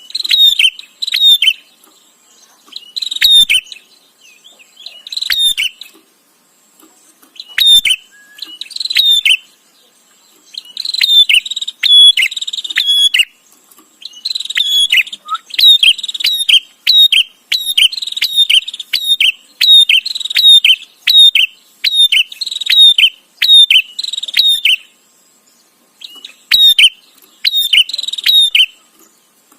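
Prenjak (prinia) chattering: loud, fast series of short sharp repeated calls in clusters of a second or two, with brief pauses between them and a long unbroken run in the middle.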